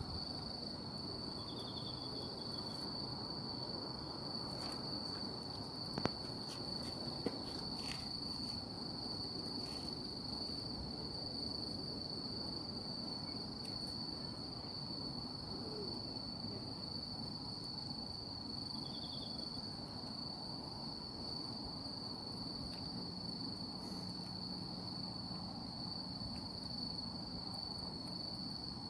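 Insects calling at night: one high, unbroken trill, with a few short pulsed chirps from another insect now and then. Faint ambient hiss underneath, and a couple of sharp pops about six and seven seconds in, typical of burning charcoal.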